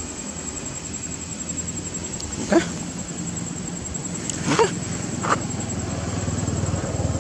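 Three short, sharp animal calls, about two seconds in, near the middle and a little after, over a steady low hum.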